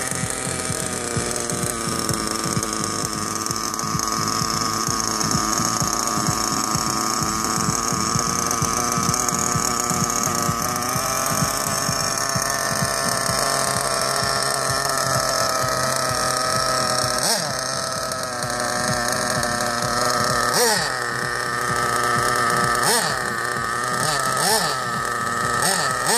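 Small nitro engine of an RC buggy running at a steady idle. Its pitch dips briefly and recovers several times in the last ten seconds.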